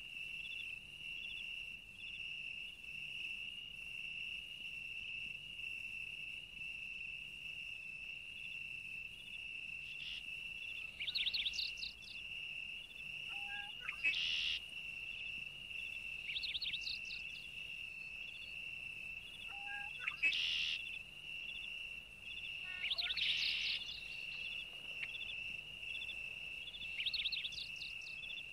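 Insects trilling steadily on one high pitch, with a faint ticking pulse in the trill. Short rising bird chirps break in six times, each a quick cluster of notes.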